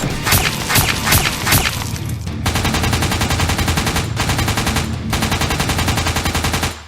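Gunfire sound effects: a few separate shots, then long, rapid machine-gun bursts with two short breaks, cutting off suddenly near the end.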